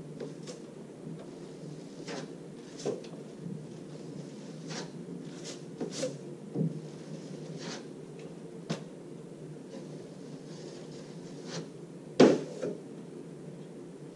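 Scattered clacks and scrapes of a drywall knife loading joint compound from a hawk and spreading it on plasterboard joints for the finish coat: about a dozen sharp taps, the loudest about twelve seconds in, over a steady low hum.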